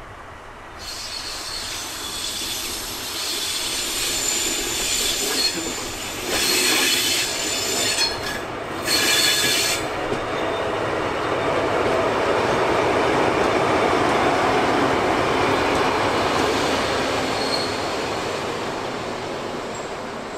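DR class 118 (V180) twin-engine diesel-hydraulic locomotive 118 552 running on its own. Its wheels squeal on the curving track and points through the first half, with two sharper screeches, then the drone of its diesel engines swells and eases off.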